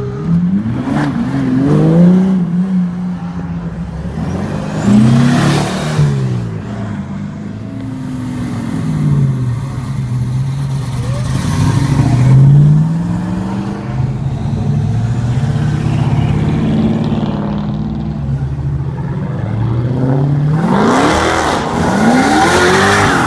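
Loud supercar engines revving as the cars pull away one after another. The engine note swings up and down in pitch many times, loudest about two, five and twelve seconds in, with more quick revving near the end.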